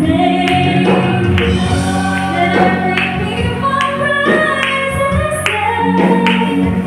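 Choir singing a gospel song, a woman's voice leading into a microphone with long held notes, continuous throughout.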